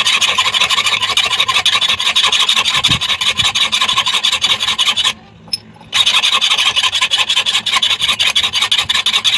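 Rapid rasping strokes of a file worked back and forth, stopping for under a second about five seconds in, then starting again.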